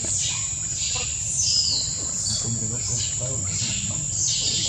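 Steady, high-pitched insect drone from crickets or cicadas, with short high chirps that fall in pitch repeating about once a second over it.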